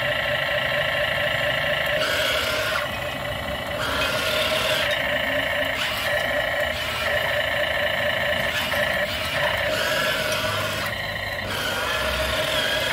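Remote-control die-cast toy excavator running: a steady whine from its small electric motors and gears that shifts in pitch and texture every second or so as it drives on its tracks, slews and works its arm.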